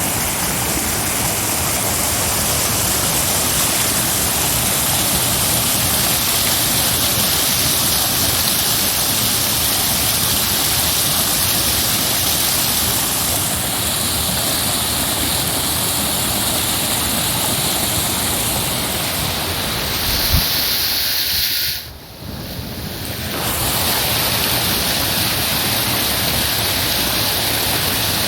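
Heavy rushing water, a steady loud hiss with no pauses; its tone shifts twice, and it dips briefly quieter about 22 seconds in before resuming.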